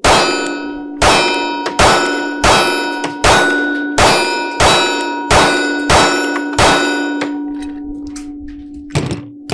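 Sig P365XL 9mm pistol fired eleven times in a steady string, each shot clanging on a steel target that rings on between shots and fades after the last. The string runs without a stoppage. A softer knock comes near the end.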